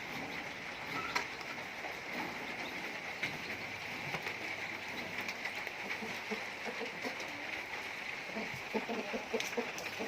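Chickens clucking softly while feeding, the short calls clustering in the last couple of seconds, over a steady background hiss with scattered faint clicks.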